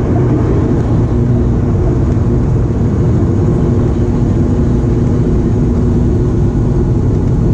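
Turboprop airliner's engines and propellers running steadily at high power during the take-off roll, heard from inside the cabin: a loud, even rumble with a low propeller hum.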